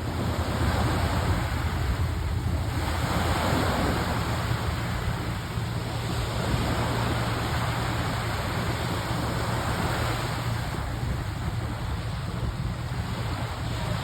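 Waves washing in on the shore, with a steady wind rumble on the microphone; the wash swells twice.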